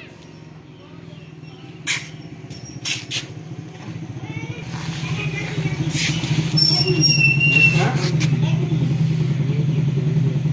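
A motor engine running steadily, growing louder from about four seconds in, with a few sharp knocks over it.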